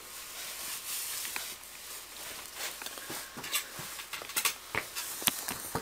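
Light scraping and small sharp clicks of small hard objects being handled, over a steady hiss. The clicks come thicker and louder in the second half.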